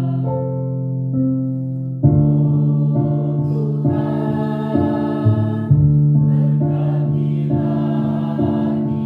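Children's school choir singing long held notes together, with keyboard accompaniment; a fresh phrase comes in strongly about two seconds in.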